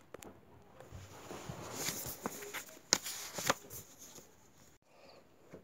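Faint rustling noise with a few sharp clicks in the middle of the stretch.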